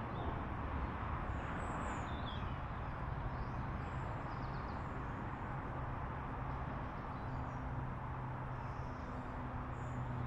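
Steady outdoor ambience: an even background hiss with a low, steady hum, and a few faint bird chirps.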